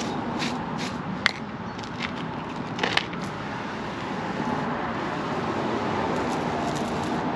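A few sharp clicks and scrapes of loose concrete bits being cleared from a chipped curb, then a steady hiss of water spraying from a hand-pump sprayer wand to wet the broken concrete before patching.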